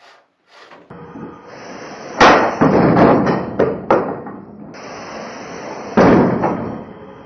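Combat robots crashing together: a spinning shell robot striking a flat box-shaped robot. There are sharp metallic impacts about two seconds in, several more over the next two seconds, and another hard hit about six seconds in, over a steady background noise. The first second is near silent.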